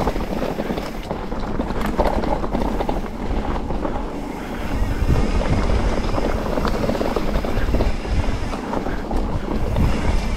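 Wind buffeting the microphone of a camera on a mountain bike at riding speed, a loud, unsteady rumble and hiss with the noise of the bike moving over the trail under it.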